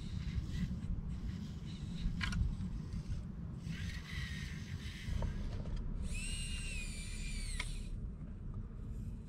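Small electric motor of an RC scale construction model whining in two bursts, the second louder, its pitch wavering slightly, over a low steady rumble.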